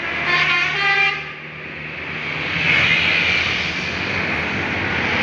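A tour bus's telolet horn plays the last notes of its multi-tone tune for about a second. Then the bus passes close by, with a rising rush of engine and tyre noise that stays loud.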